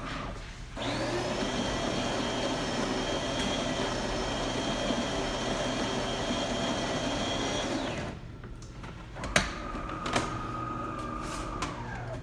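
DeLonghi Perfecta super-automatic espresso machine starting a shot: its built-in grinder runs steadily for about seven seconds, rising to a whine as it spins up and then stopping abruptly. Two sharp clicks and a short motor whine follow as the machine moves on with the brew cycle.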